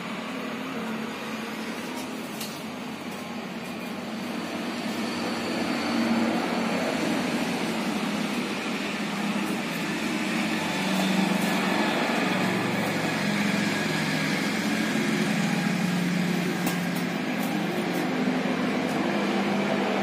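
Steady mechanical hum, a low wavering drone from a motor or fan, which grows louder about six seconds in.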